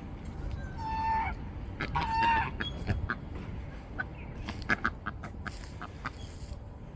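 Two short, pitched, honk-like calls made with the mouth closed, about a second apart, followed by a scatter of small clicks.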